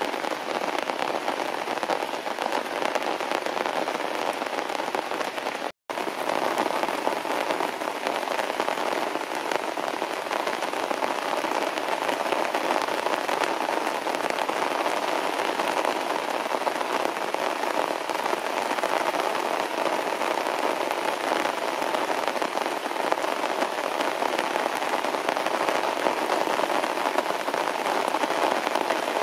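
Heavy rain falling steadily on grass and leaves, a dense even hiss. The sound drops out completely for an instant about six seconds in.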